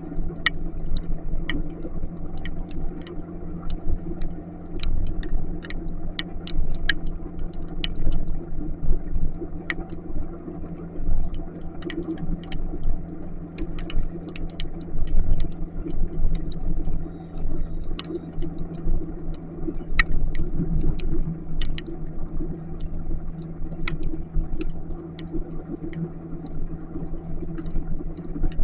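Small motorcycle engine running steadily while riding, with road rumble, and irregular sharp ticks of raindrops striking close to the microphone.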